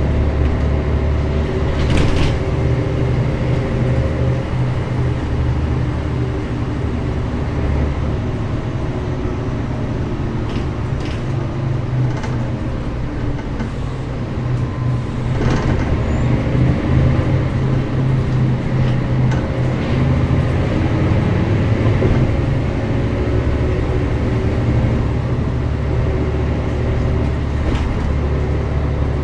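Mercedes-Benz O405GN² articulated bus's diesel engine running under way, a steady low drone that swells and eases with load, louder in the first third and again in the middle. A few sharp clicks or rattles come through over it.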